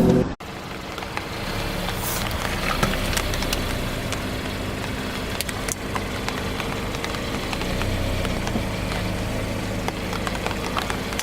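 A car engine running at a slow, steady idle, with scattered small clicks and crackles over it.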